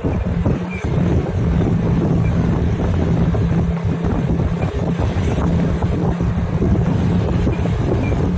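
Small engine running at a steady speed, with wind buffeting the microphone.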